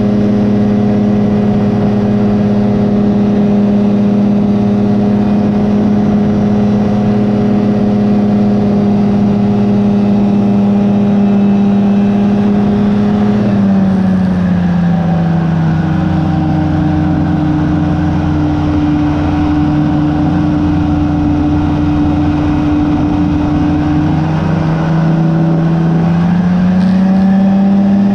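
Rotax 503 two-cylinder two-stroke engine of a Phantom X1 ultralight running steadily in flight. About halfway through the pitch drops as it is throttled back, holds lower for about ten seconds, then rises back to the earlier setting near the end.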